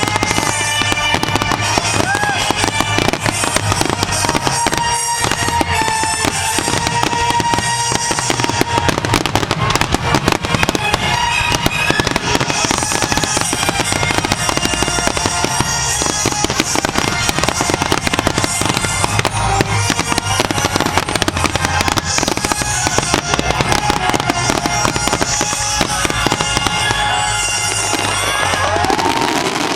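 Fireworks finale: a rapid, unbroken barrage of aerial shells bursting and crackling, with music playing underneath.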